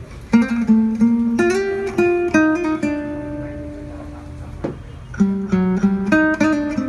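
Guitar intro of a bolero song played from CD on a JVC EX-HR5 mini system through its wood-cone speakers: a plucked melody line, one long held note about halfway through, then the picking resumes.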